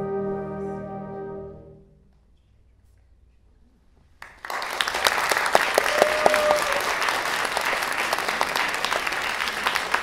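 A concert wind band's final chord, brass and woodwinds held together, dies away over about two seconds. After about two seconds of near silence, the audience breaks into loud, sustained applause.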